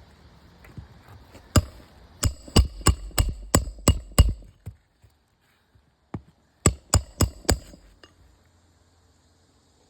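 Hammer blows with a short metallic ring, struck during shingle nail removal on an asphalt-shingle roof: one blow, then a run of about seven quick blows, a pause, then four more.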